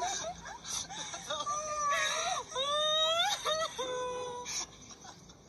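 A young woman's high voice making drawn-out, wavering whimpering cries that slide up and down in pitch, dying away near the end.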